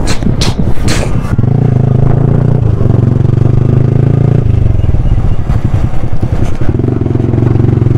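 Motorcycle engine running at a steady pitch. A few sharp clatters and wind on the microphone come in the first second or so, and the engine note wavers for a couple of seconds around the middle.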